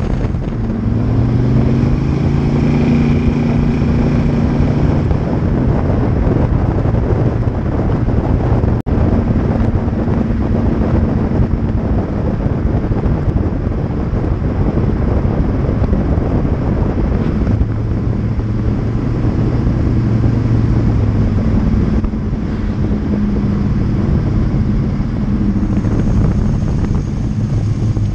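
Small-block Chevy V8 with a Flowmaster exhaust, driving a 1986 Monte Carlo SS at road speed, heard from beside the rear wheel with tire and wind noise. The engine note rises and falls with the throttle, and the sound cuts out for an instant about nine seconds in.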